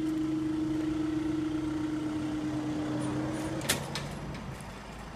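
Level crossing barrier machinery humming steadily as the barriers rise, stopping with a sharp click about three and a half seconds in, with a lower hum dying away a second later as the barriers reach the top.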